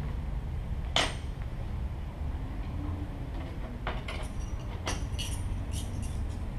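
Amplified plant materials being struck and plucked through loudspeakers: one sharp knock about a second in, then a run of small, high, dry clicks and rattles in the second half, over a steady low hum.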